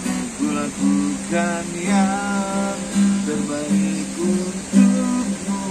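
Acoustic guitar strummed, with a man singing along in held, gliding notes.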